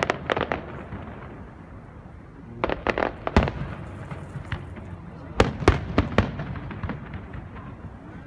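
Aerial fireworks shells bursting overhead: a quick cluster of sharp bangs at the start, another around three seconds in, and a third around five and a half to six seconds in.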